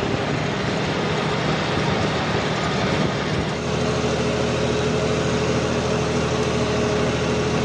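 Tractor's diesel engine running steadily while pulling a furrowing implement through soil, heard close from the driver's seat, with a steady whine above the engine note.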